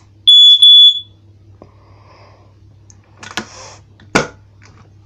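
Status KD134A photoelectric smoke alarm sounding its loud, high-pitched test alarm: two short blasts with a brief break between them, less than a second in all. A rustle of handling follows, then a sharp knock near the end.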